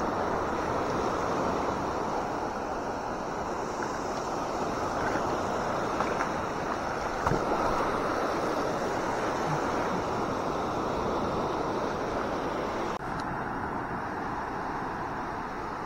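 Waves washing in over the shallows, mixed with wind rumbling on the microphone. The noise is steady, with a brief dropout and a slight change in its sound about thirteen seconds in.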